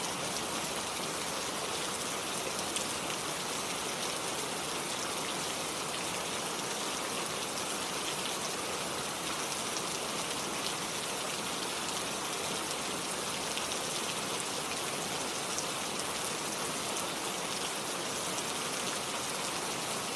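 Steady rainfall with many fine drops pattering, mixed with a flowing stream.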